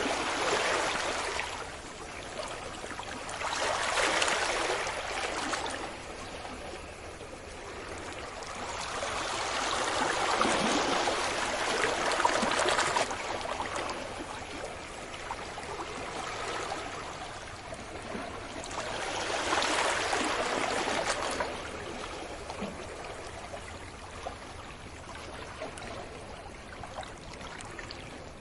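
Sea waves breaking and washing up a beach, the rush of water swelling and fading every several seconds.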